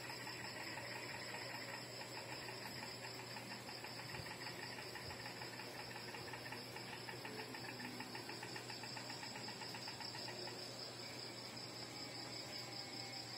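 Faint, steady insect trilling, a rapid even pulsing that goes on without a break, over a low steady hum.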